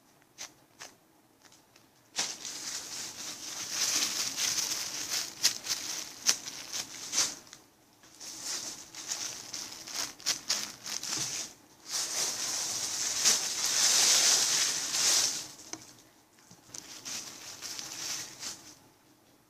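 Thin plastic packaging crinkling and rustling as it is handled and opened, in long stretches broken by short pauses, with sharp little crackles throughout. It starts after a couple of faint clicks.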